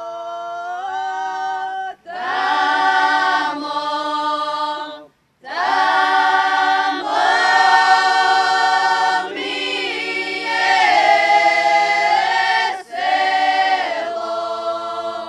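Croatian folk song sung a cappella by a group of women and men, in long held notes that slide from one pitch to the next. There is a short breath pause about five seconds in.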